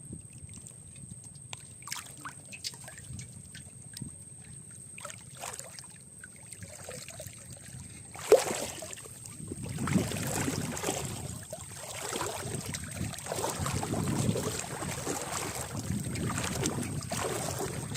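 Shallow river water sloshing and splashing, starting with a sharp knock about eight seconds in after a quieter stretch of small scattered clicks.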